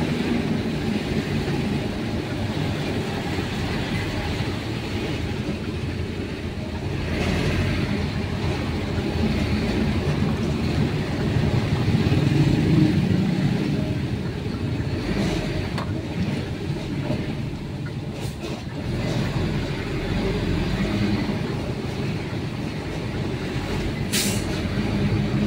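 Steady low rumble of a truck's diesel engine and road noise heard from inside the cab as it drives slowly, with a brief sharp click near the end.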